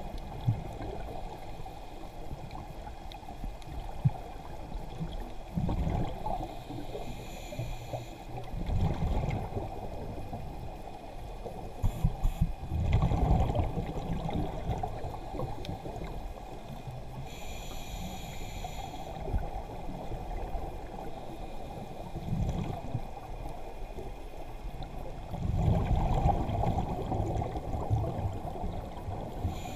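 Muffled underwater noise picked up by a submerged camera, with a low rumble throughout. Louder bubbling bursts come about every ten seconds, along with a few duller thumps.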